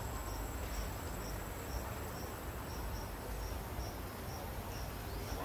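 An insect chirping in short, evenly spaced high pulses, about two a second, over a steady background hiss and low rumble.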